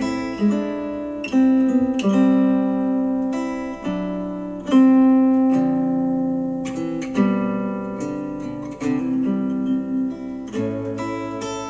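Acoustic guitar music, with chords struck and left ringing, changing about every one to two seconds, played back through a JBL Xtreme 3 Bluetooth speaker.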